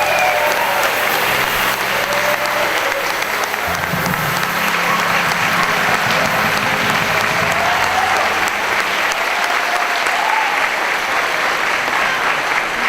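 Theatre audience applauding steadily, with a few shouts and whoops among the clapping.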